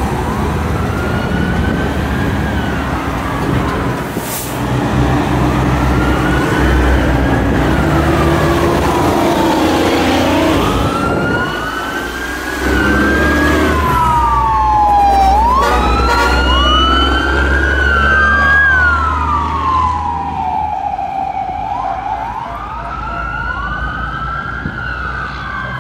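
Emergency-vehicle sirens wailing in slow rising and falling sweeps, two sirens overlapping about halfway through, over the low rumble of heavy dump trucks driving past.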